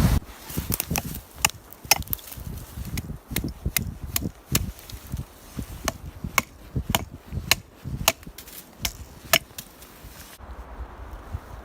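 A blade chopping wood: a string of sharp, irregular strikes, about two a second, that stops about ten seconds in.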